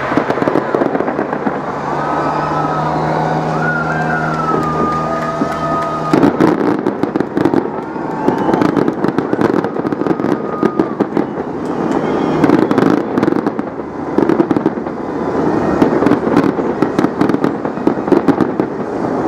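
Aerial fireworks bursting overhead. From about six seconds in comes a dense, continuous crackling of rapid bangs and pops. Before that, a steady low drone with higher gliding whistle-like tones sits over the bursts.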